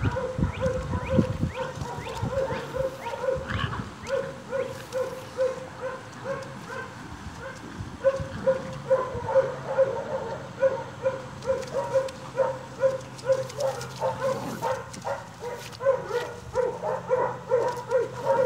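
Staghound puppies vocalizing as they play tug-of-war, a long run of short repeated yips, about two or three a second, with low growling in the second half.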